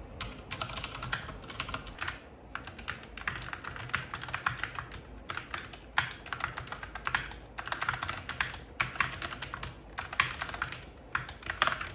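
Fast typing on a keyboard: runs of rapid keystrokes broken by short pauses, stopping just before the end.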